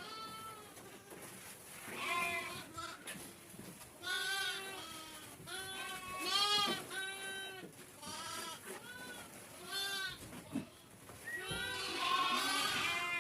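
Sheep and goats of a herd bleating again and again, one call after another with short gaps, several calls overlapping near the end.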